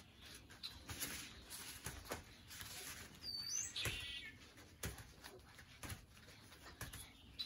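Faint scattered soft knocks and rustling of people doing plank push-ups on exercise mats, with a brief high chirp about three seconds in.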